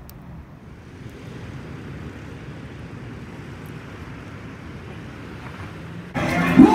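Low, steady rumble of distant street traffic and wind on the microphone. About six seconds in it cuts abruptly to loud live hip-hop concert music.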